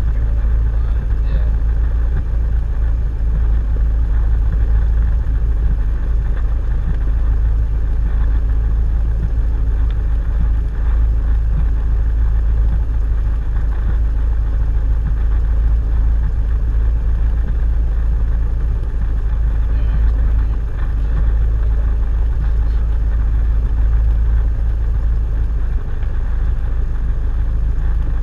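Cessna 172's piston engine and propeller running at taxi idle, a steady low drone heard from inside the cabin.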